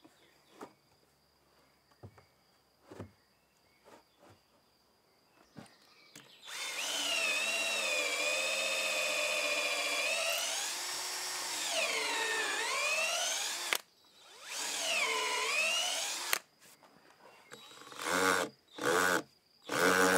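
A few faint knocks, then a cordless drill boring into a fresh pine bench seat: a steady whine starting about six seconds in that sags in pitch under load, stops, restarts, and ends in a few short bursts.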